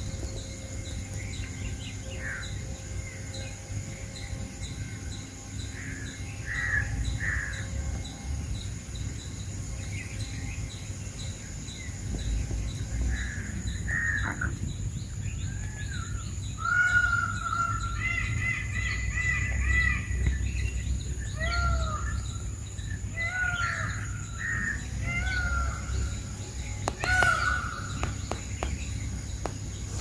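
Wild birds calling around the display ground: short, repeated calls, a few at first and crowding together from about halfway through. Under them runs a steady high insect drone with even ticking.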